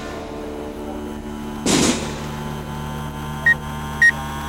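A firework going off once, a short loud blast about two seconds in, over a steady hum of held tones; two short high beeps sound near the end.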